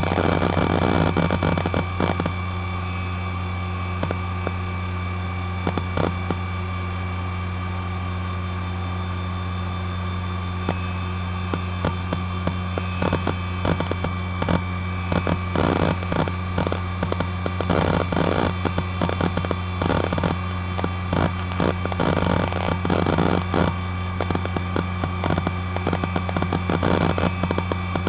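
ExcelStor Technology CT210 10.2 GB hard drive spinning with a steady hum and faint whine, its heads seeking in rapid clicking chatter as Windows XP loads from it. The seeking is busy at the start, mostly stops for a long stretch, then runs almost continuously from about halfway on.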